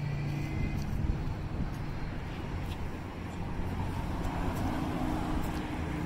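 Road traffic passing nearby: a steady low rumble of cars, with a faint engine hum coming and going.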